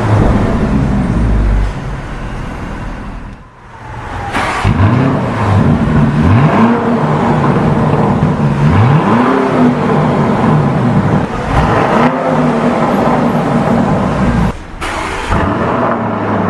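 Lamborghini Urus twin-turbo 4.0-litre V8 revving, its pitch climbing and falling back several times in quick succession, with a brief lull early on and another near the end.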